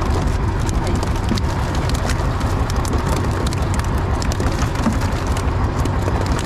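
Fishing boat running at sea: a steady, loud low rumble with a constant crackling hiss over it.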